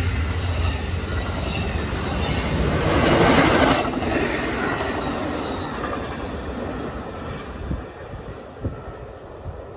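Amtrak Superliner bi-level passenger cars rolling past at speed, a steady rush of wheels on rail that fades as the train draws away near the end.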